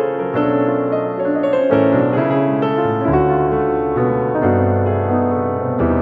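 Background piano music: a calm melody of single struck notes over changing bass notes.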